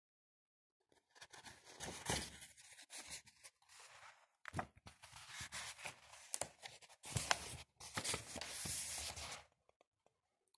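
Paper pages of a book being turned and handled by fingers: a run of dry rustles and crinkles with a few sharp flicks, stopping shortly before the end.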